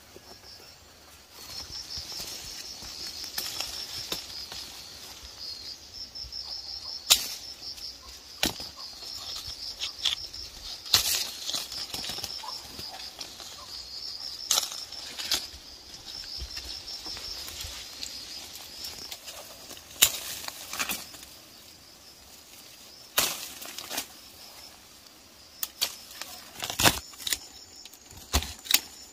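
Insects chirring in a steady pulsing high trill, fading out a little past the middle. Irregular sharp snaps and knocks cut through it, several close together near the end.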